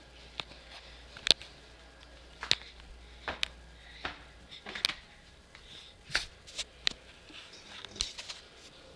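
A series of irregular sharp clicks and taps with light scuffing between them, about a dozen over several seconds, the loudest a little over a second in.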